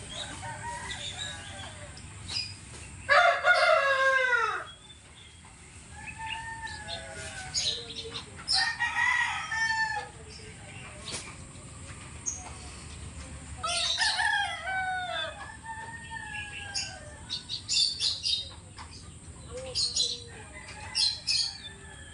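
Rooster crowing, loudly about three seconds in and again about fourteen seconds in, with shorter chicken calls in between.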